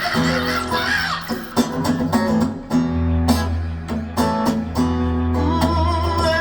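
Instrumental passage of a song with strummed guitar over a steady bass line, played back through Børresen C1 stand-mount loudspeakers driven by an Aavik U-188 amplifier.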